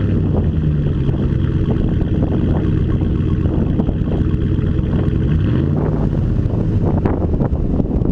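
Ford Raptor's 6.2-litre V8 idling through an open aftermarket exhaust, blipped slightly about half a second in and revved up and back down about two-thirds of the way through.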